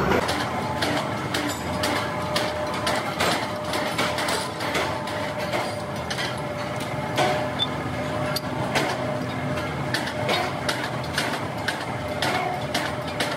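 Steel blade blanks cut from leaf spring clinking and knocking against each other as they are sorted and stacked by hand, over a steady hum of workshop machinery.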